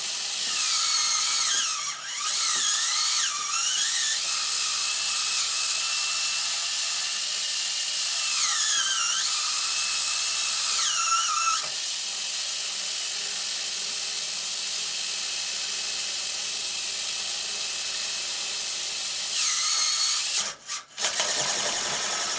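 Small electric motor driving a homemade string-loop cat toy, running with a steady high whine. Its pitch sags and recovers several times, and near the end it cuts out briefly twice.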